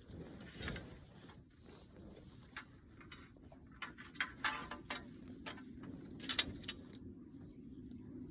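A run of short knocks, clicks and rustles from objects being handled, the loudest a sharp knock about six and a half seconds in. A low steady hum comes in about halfway through, and a bird chirps faintly.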